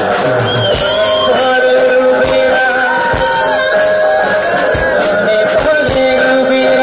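A live band plays a Hindi–Bengali song mashup: a male singer over two acoustic guitars and a drum kit, amplified through stage speakers.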